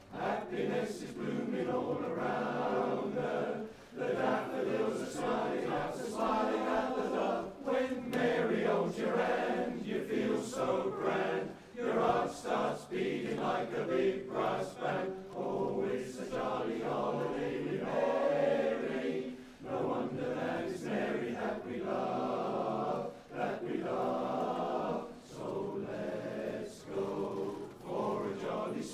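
A large barbershop chorus of about 44 voices singing unaccompanied in close harmony, sustained phrases with a few short breaths between them.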